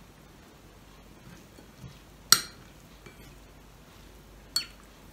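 Metal spoon clinking against dishes as food is served: one sharp clink about two seconds in, and a second, fainter one near the end.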